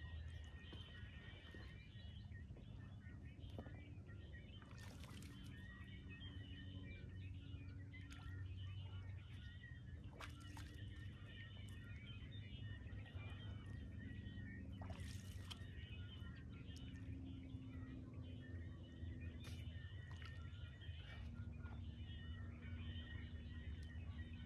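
Quiet lakeshore ambience: a steady low rumble under faint, scattered bird chirps and small water sounds, with a few brief sharp noises.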